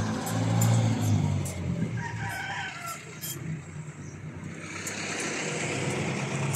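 A truck engine running, loudest in the first two seconds and then fading as the truck moves off, while a rooster crows about two seconds in.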